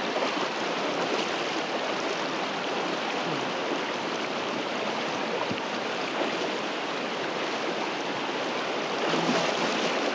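High, fast-flowing river rushing steadily over rocks.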